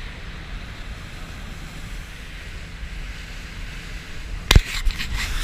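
Wind buffeting the microphone over a steady wash of water around a boat. Near the end, a sharp knock followed by rustling and crackling.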